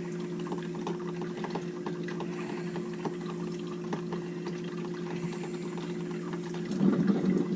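Drip coffee maker gurgling and bubbling as vinegar heats and runs through it on a cleaning cycle, over a steady low hum. The gurgling swells louder near the end.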